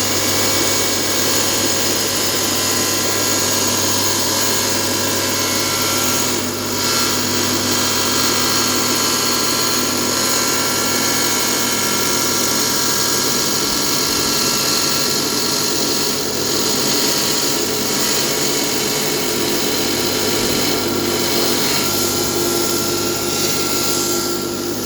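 Electric tile-cutting machine running steadily, its diamond blade cutting a long ceramic tile: a continuous loud motor-and-blade whine, with a brief dip about a quarter of the way through and a shift in tone near the end.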